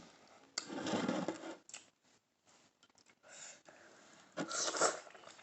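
Eating noises from someone eating shell-on seafood-boil shrimp, in two short bursts: one about half a second in and one about four and a half seconds in.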